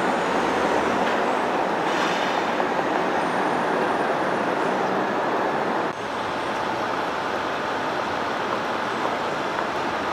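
City street traffic noise: a steady, dense wash of passing vehicles, dipping slightly about six seconds in.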